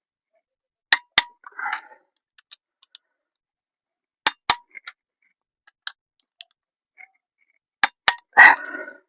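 Sharp metallic clinks in three pairs, a few seconds apart, from tools and engine parts being handled during an engine rebuild, with brief rustling after the first and last pairs.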